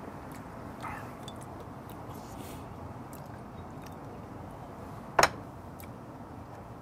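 A steady background hiss, then a single sharp knock with a short glassy ring about five seconds in: a glass soju bottle set down on the table after a shot is poured.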